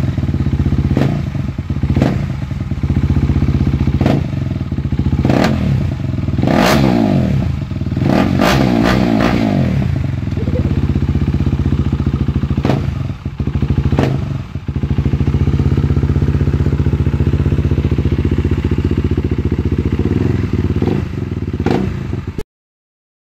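KTM Duke 390's single-cylinder engine running with its muffler removed, open pipe, with sharp pops scattered through the idle. It is revved a few times in the middle, the pitch rising and falling, and the sound cuts off suddenly near the end.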